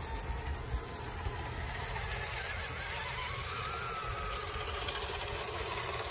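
Electric motors and gear trains of RC scale crawler trucks whining as they crawl over a dirt trail, the pitch rising about halfway through and falling again with the throttle, over a steady low rumble.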